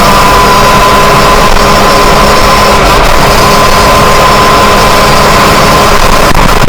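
Yamaha YZ125's two-stroke single-cylinder engine running under way, very loud and with a nearly steady note.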